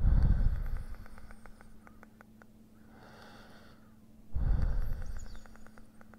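A person breathing close to the microphone: two loud exhalations, each trailing off into a run of small clicking noises in the throat that slow down, with a softer breath in between. A faint steady hum sits underneath.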